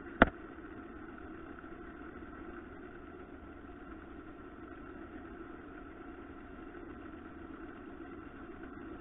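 Wood lathe running at a steady speed, its motor giving a steady hum, while finish is rubbed onto the turning piece with a cloth. A single sharp click, the loudest sound, comes about a quarter second in.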